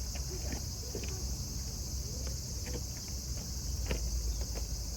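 Steady, unbroken high-pitched insect chorus, with a low rumble underneath and a few faint scattered clicks.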